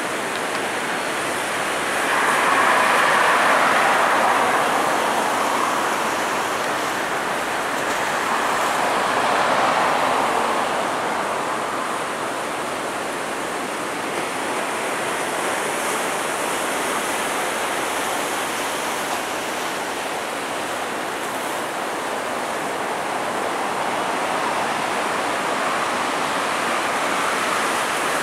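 Boeing 777 jet engines running at low power as the airliner taxis after landing, heard as a steady distant rush that swells twice, about two seconds in and again near ten seconds.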